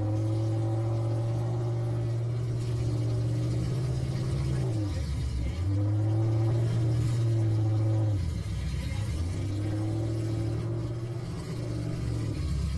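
Half-ton pickup truck engine held at high revs, sagging briefly about five seconds in and again about eight seconds in before picking back up.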